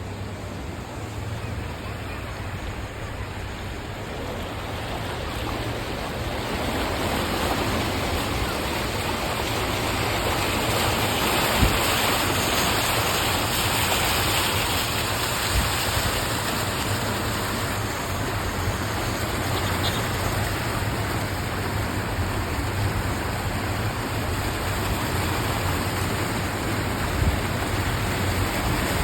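Heavy rain: a steady rushing noise of falling and running water that grows louder over the first several seconds, with a low steady hum underneath and a few soft knocks.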